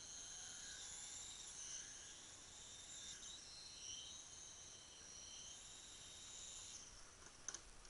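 Faint, high-pitched whine of a remote control helicopter in flight, several tones shifting a little up and down in pitch together.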